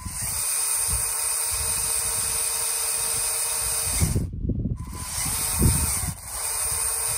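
Lego Technic L motors, five geared to one wheel through a 1:3 stage and 5.4:1 portal hubs, whirring as they spin a big tractor tyre under power, with a steady drill-like whine. The whine breaks off for about half a second around four seconds in, leaving a few low knocks, then picks up again.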